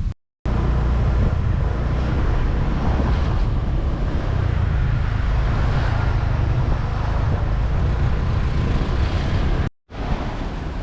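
Steady wind buffeting the microphone while riding, with vehicle engine and road noise beneath. The noise breaks off in two short silences, just after the start and near the end.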